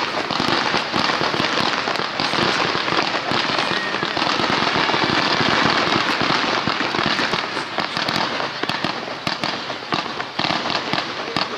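Starmine fireworks: several columns of rising comets and small shells fired in quick succession, making a continuous dense rush of rapid pops and crackles. The volley thins out a little near the end.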